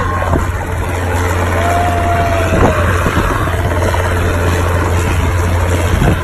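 Helicopter running steadily, a constant low rotor drone under a rushing engine noise.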